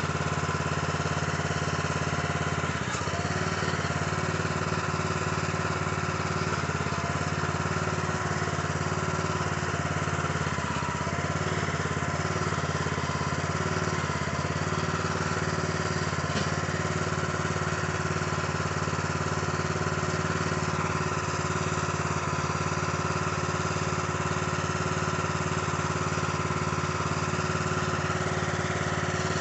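Small gasoline engine of a Harbor Freight towable backhoe/trencher running steadily at an even speed.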